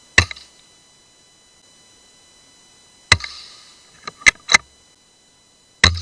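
.17 HMR rimfire rifle firing three shots, each a sharp crack with a short tail, about three seconds apart. Between the second and third shots come three quick lighter clicks.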